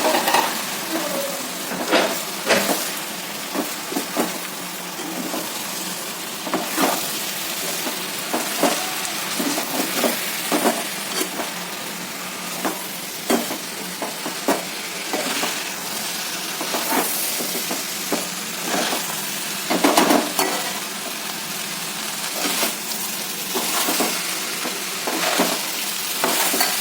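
Freshly washed rice sizzling in hot oil with fried vegetables and spices in a pan, stirred with a spoon that scrapes and clicks against the pan every second or so.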